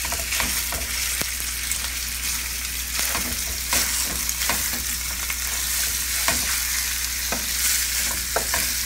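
Ground sausage meat sizzling in hot oil in a skillet, with irregular taps and scrapes of a wooden spoon breaking it up.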